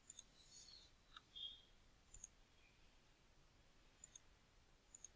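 Near silence with a few faint computer mouse clicks, several of them in quick pairs.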